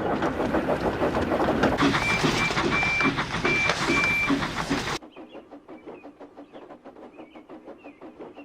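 Steam locomotive sound effects: fast, loud chuffing and rail clatter, with a run of short, high-pitched beeping tones in the middle. About five seconds in it cuts abruptly to a much quieter, lighter rhythmic clicking.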